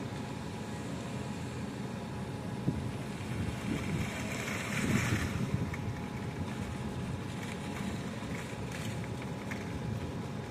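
Steady low engine rumble of construction machinery working at a concrete pour, with a brief louder rushing swell about five seconds in.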